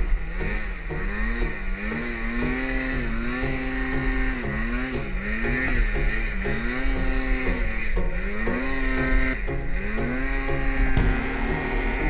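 Two-stroke mountain snowmobile engine, the throttle opened and eased off again and again, the pitch climbing and dropping about once a second, then held steady near the end.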